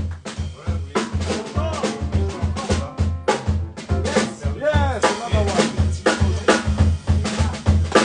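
Live jazz band playing: a drum kit and double bass keep a steady groove, with a low pulse about two to three times a second and sharp drum hits over it.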